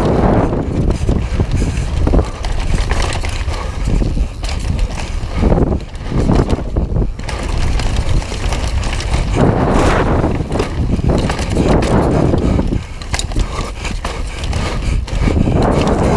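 Wind buffeting the microphone of a camera mounted on a fast-moving mountain bike, over the tyres rolling on a dirt trail and the bike rattling and knocking over bumps. The wind swells and eases every few seconds.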